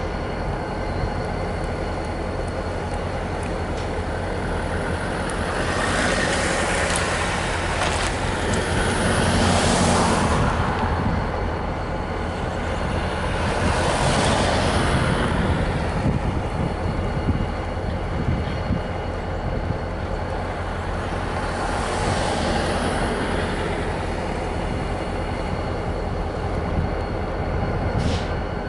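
Diesel locomotive idling with a steady low rumble, while a broad whooshing noise swells and fades several times.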